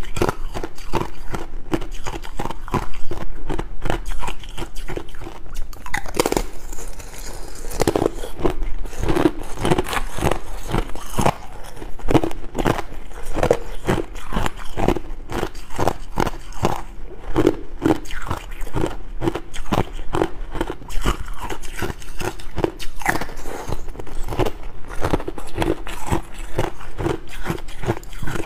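Hard frozen yellow ice discs being bitten and chewed close to a clip-on microphone: a continuous run of sharp crunches and cracks, several a second, as the ice breaks between the teeth.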